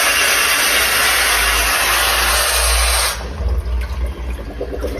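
Water rushing with a loud, steady hiss in a public toilet's plumbing, running unchecked from a valve or pipe that has been left on or is leaking. The hiss cuts off suddenly about three seconds in, leaving a low rumble.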